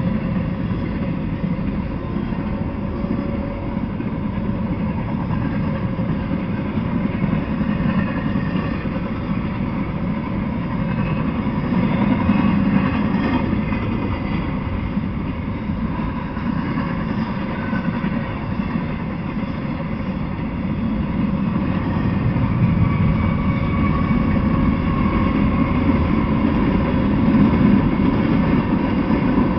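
Freight train rolling past with a steady rumble of steel wheels on rail as empty intermodal well cars and then tank cars go by.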